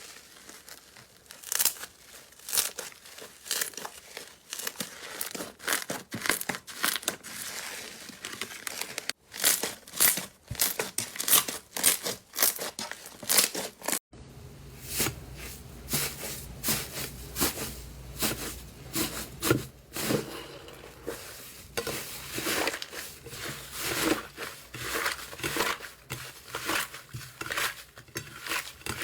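Slime being squeezed and kneaded by hand, giving a dense, irregular run of sticky crackling clicks and pops. The sound changes abruptly about 9 and 14 seconds in, and after the second change a low hum sits underneath.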